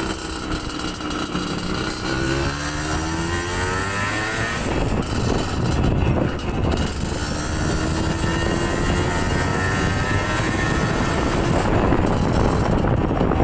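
Yamaha DT125's two-stroke single-cylinder engine accelerating. Its pitch climbs for about four seconds, then climbs again partway through.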